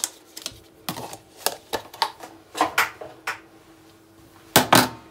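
A metal spoon clicking and scraping against dishes, a string of short sharp taps, ending in two loud clacks close together near the end as it is set down on a stainless-steel sink drainer.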